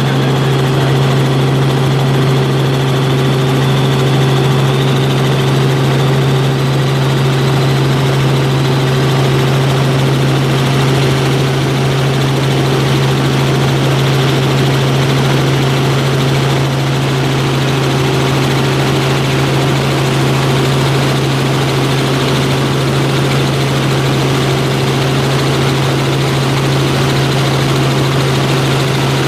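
Helicopter in flight, its engine and rotors heard from inside the cabin as a loud, steady drone with a strong low hum.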